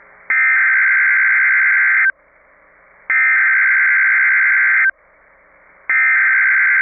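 Emergency Alert System SAME header on NOAA Weather Radio: bursts of screeching digital data tones, each just under two seconds long with a second's gap between them, two complete and a third starting near the end. This coded header is what announces the alert and sets off alert receivers.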